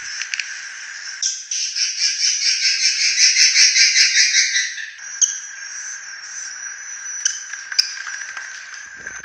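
Swiftlet lure call: a rough, harsh, rapid chattering twitter of swiftlets, loudest and densest from about a second in to about five seconds in, then thinning to scattered chirps and clicks.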